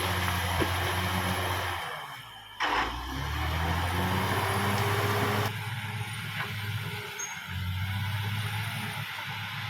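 Caterpillar D6R XL bulldozer's diesel engine running steadily. It dips briefly, then comes back with a sudden loud rush and falling sweep about two and a half seconds in. The tone shifts abruptly about halfway through.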